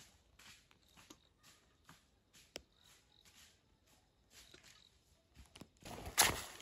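Footsteps on dry leaves and grass, faint and regular at about two steps a second, then a loud close rustle near the end as someone walks right past.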